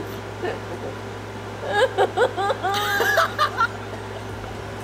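Stifled laughter through a covered mouth: a run of short, high-pitched snickers about two seconds in, over a steady low hum.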